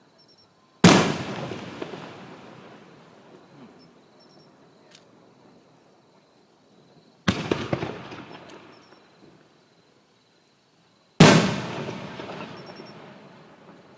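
Three aerial firework shells bursting, about six and then four seconds apart. Each is a sharp bang followed by a tail that fades over several seconds, and the second burst is quieter than the other two.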